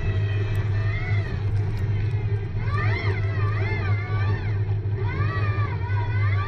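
CUPRA e-Racer's electric drive motor whining in several tones at once, the pitch swinging up and down quickly as the car is driven on snow, over a steady low rumble.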